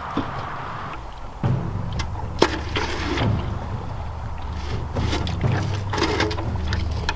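Wind rumbling on the microphone from about a second and a half in, with scattered sharp knocks and crunches as ice and snow are handled.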